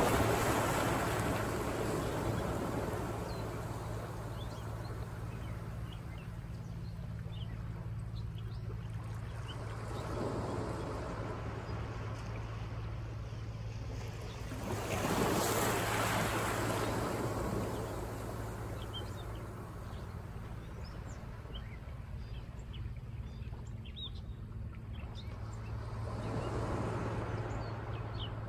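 Ocean surf, with waves breaking and washing in one after another; the loudest swell comes about halfway through. A steady low rumble of wind buffeting the microphone runs underneath.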